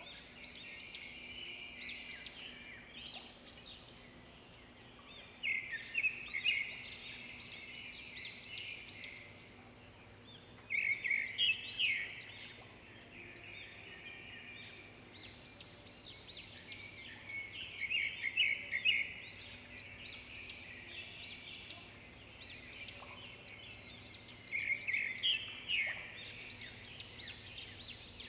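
Small birds chirping, with louder, busier bursts of calls every five or six seconds.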